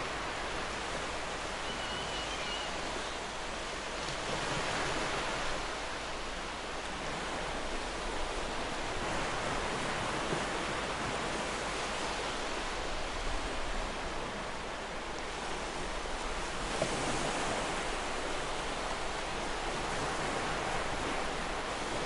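Sea waves breaking and washing ashore: a continuous hiss of surf that swells softly every several seconds.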